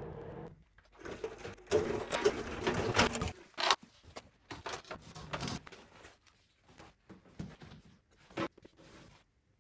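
Handling noise as an air dryer is strapped to a hand truck: rustling cardboard and a strap being pulled, with many small clicks and knocks, busiest in the first few seconds and then sparse.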